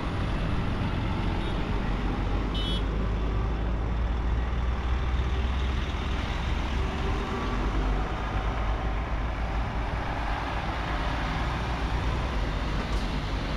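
Heavy trucks' diesel engines running in a steady low rumble as a convoy of lorries drives one after another round a roundabout.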